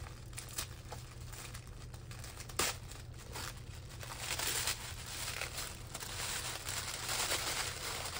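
Tissue paper crinkling and rustling as a package is unwrapped by hand, with a sharp crackle about two and a half seconds in. The rustling grows denser from about four seconds in.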